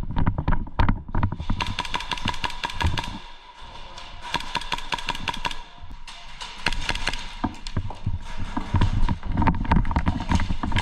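Airsoft guns firing in rapid bursts, a fast clatter of sharp shots that eases briefly about three seconds in and then picks up again.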